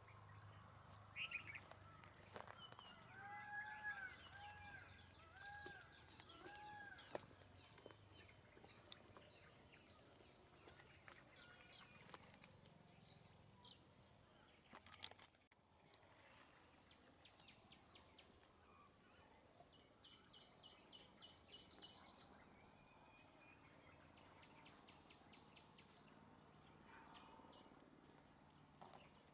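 Faint outdoor background, close to silence. A few seconds in, a bird calls a short series of arched whistled notes, and small clicks and rustles are scattered throughout.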